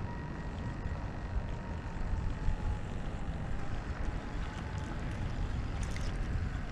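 Wind rumbling on the microphone over open water, with the faint thin whine of a distant boat motor slowly dropping in pitch over the first few seconds. A few light clicks about six seconds in.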